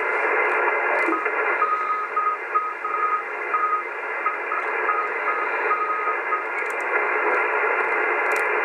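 AOR AR8600 receiver's speaker hissing with shortwave band static in lower sideband on the 80-metre band. A Morse code tone keys on and off in short and long beeps from about a second in until about six seconds in.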